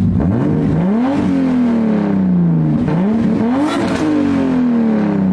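Turbocharged BMW M50 inline-six in an E30, muffler removed so it runs through a 3-inch pipe, resonator and blast pipe, revved twice from idle. Each rev climbs quickly and then falls away more slowly.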